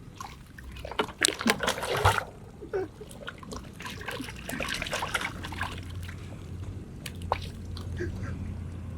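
Slime splashing and splattering in loud bursts about a second in, then again more softly a few seconds later, as it is dumped over a person.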